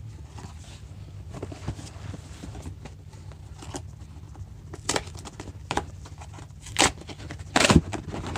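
A cardboard shipping box being handled and opened: scattered rustling and scraping, with a few louder knocks and rips in the second half.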